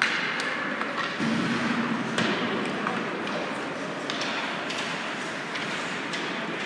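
Ice hockey play echoing in an indoor rink: several sharp clacks of sticks, puck and boards, a second or two apart, over a steady hiss of skates and arena noise.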